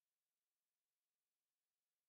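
Near silence, with no audible sound.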